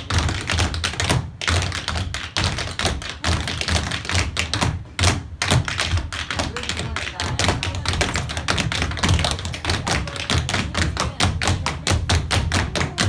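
Clogging taps: a team of cloggers' tapped shoes striking the floor in rapid, rhythmic patterns, danced a cappella with no music. The taps break off briefly about a second in and again about five seconds in.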